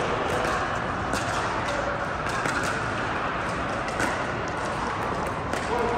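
Steady background noise of a large indoor sports hall, with a few scattered sharp taps of pickleball paddles and balls.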